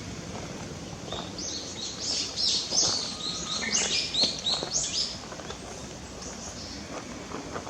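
A small songbird singing a rapid run of short, high chirping notes for about four seconds, starting about a second in, over a steady outdoor background hum.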